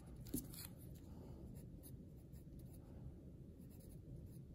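Pen writing on a paper worksheet, faint scratching strokes, with a small tap about a third of a second in.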